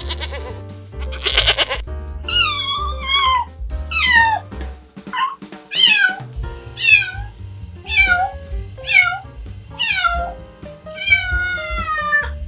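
A cat meowing about nine times, each meow a falling call and the last one longer, over background music. A short bleat sounds in the first two seconds, before the meows begin.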